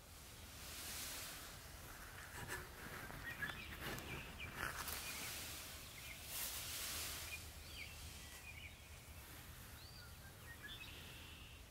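Faint rural outdoor ambience: a few short, high songbird chirps over soft swells of rustling noise, with a brief patch of light clicks a few seconds in.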